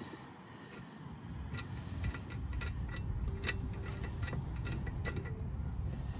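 Hand ratchet clicking as a nut is run onto the bolt at the trim cylinder mount of a stern drive, irregular ticks about two or three a second. A steady low rumble sits underneath from about a second in.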